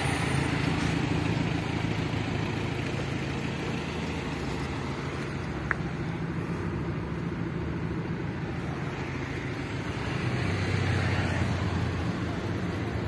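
A vehicle engine running steadily as a low drone over outdoor noise, with one sharp click about six seconds in.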